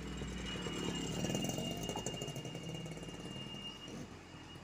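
Heavy ten-wheel diesel truck's engine running under load as it turns, swelling about a second in and easing off toward the end, with a thin steady high tone over it.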